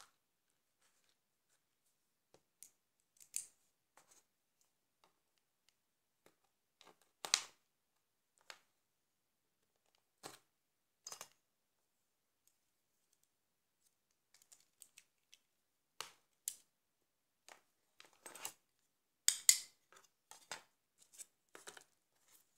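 Scattered clicks and taps of small plastic and metal mobile-phone parts being handled and set down while the phone is taken apart, with quiet gaps between them. The loudest clacks come about seven seconds in and again near the end.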